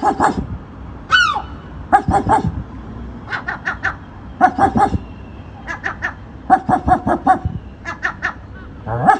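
A seagull giving a series of short, harsh barking calls in clusters of quick notes, a few bursts of four to six notes each, with a falling cry about a second in.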